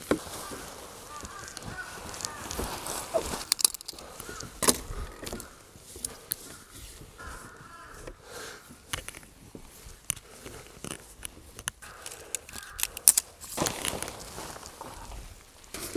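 Crows cawing at intervals, in the first few seconds and again around eight seconds in, over the rustle of a nylon dome tent being taken down and shaken out, with scattered sharp clicks and knocks from tent poles and gear.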